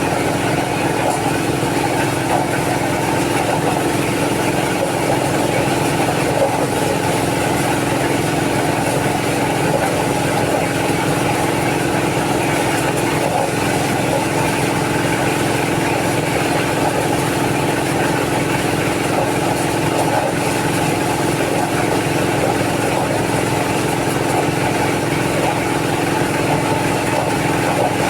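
Engine-driven corn-shelling machine running at a steady, even speed.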